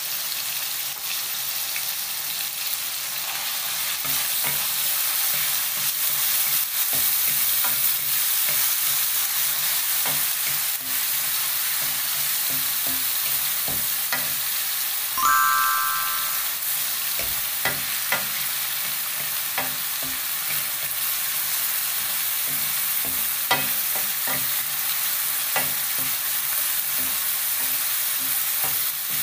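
Ground beef and garlic sizzling in a frying pan, stirred and scraped with a wooden spatula, with scattered light scraping clicks. About halfway through, a short high tone sounds for under a second.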